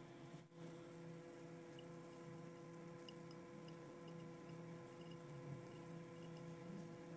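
Faint steady hum with scattered light ticks from sliced leek searing in a dry wok, the pieces crackling softly as they brown.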